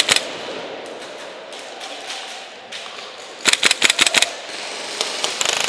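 Airsoft guns firing: a couple of sharp shots at the start, a quick run of about eight shots around three and a half seconds in, and a rapid full-auto burst near the end.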